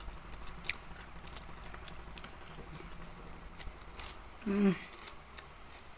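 Mouth sounds of a person chewing soft flour-and-sugar flatbread, with a few soft clicks and a brief hum about four and a half seconds in.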